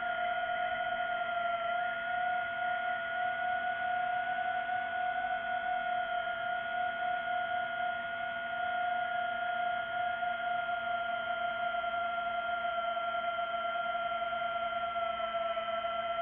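DJI FPV drone's motors and propellers whining at a steady high pitch in flight.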